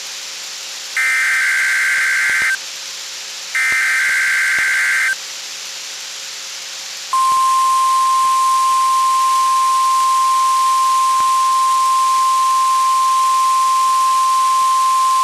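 NOAA Weather Radio Required Weekly Test tones: two SAME header data bursts, each a harsh buzzy warble about a second and a half long, with a pause between them. About seven seconds in, a steady single-pitched alert tone near 1 kHz (the 1050 Hz weather radio warning alarm tone) begins and holds.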